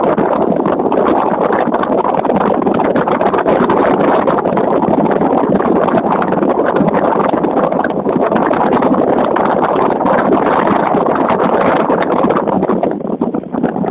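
Steady rushing noise aboard a passenger boat under way: its engine running and water washing past the hull, with a brief dip near the end.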